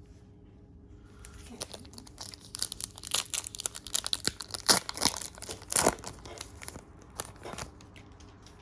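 A trading card pack wrapper being torn open and crinkled: a dense run of crackles and rips that starts about a second in, is loudest in the middle, and thins out near the end.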